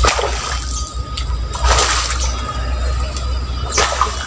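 A hooked giant gourami splashing at the surface of a pond as it is played in: three short bursts of splashing, near the start, about two seconds in and near the end.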